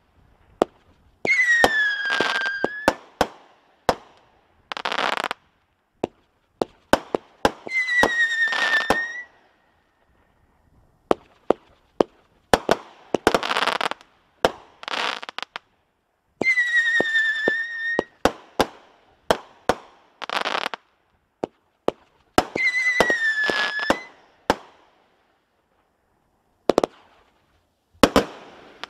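The 'Say What???' consumer fireworks cake firing a sequence of shots: sharp bangs from launches and bursts, bursts of crackle lasting a second or two, and four whistles that dip slightly in pitch, with short pauses between volleys.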